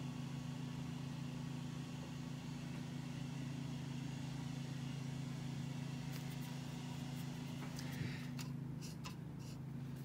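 A steady low machine hum, with a few faint clicks and taps near the end.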